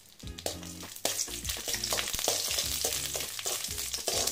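Cashews and raisins sizzling in hot ghee in a metal kadai, stirred with a spoon that scrapes and taps the pan. The sizzle swells about a second in and then holds steady.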